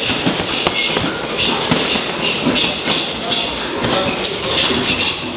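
Boxing gym training: gloved punches knocking on punching bags at irregular intervals, with feet shuffling on the floor.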